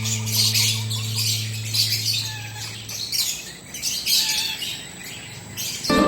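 Eclectus parrot giving short, harsh squawks, repeated roughly once a second.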